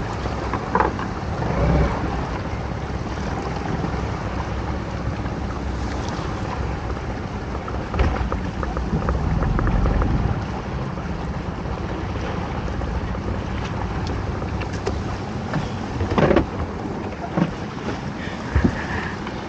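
Small fishing boat's engine idling steadily, with wind and water noise and a few short knocks of gear on the boat, one about eight seconds in and another near sixteen seconds.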